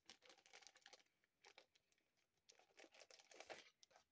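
Faint crinkling of a thin clear plastic packaging bag being handled, as scattered irregular crackles that bunch together about three seconds in.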